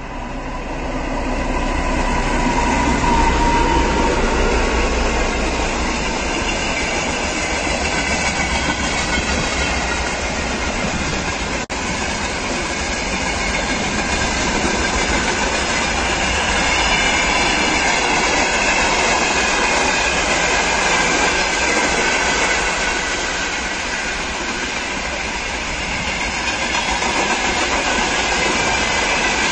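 Long freight train rolling past, a steady rumble of steel wheels on the rails with some high-pitched wheel squeal, broken by a brief cut about twelve seconds in.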